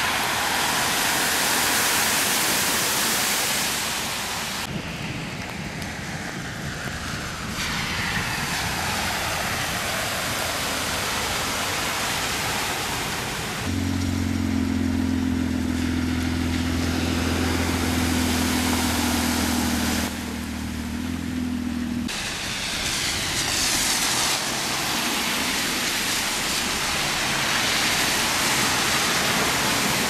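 Heavy rain pouring onto a flooded street while vehicles drive through the standing water, tyres hissing and splashing. From about a third of the way in, a vehicle engine's steady low hum runs for several seconds under the rain.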